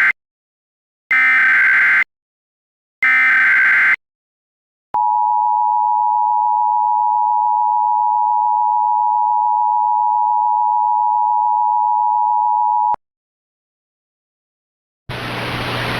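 Emergency Alert System SAME header: the end of one short burst of screeching data tones and two more, then the steady two-tone attention signal held for about eight seconds. A hiss starts about a second before the end.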